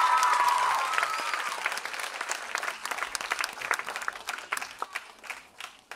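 Audience applauding, the clapping loudest at first and gradually thinning and dying away; voices call out over it at the start.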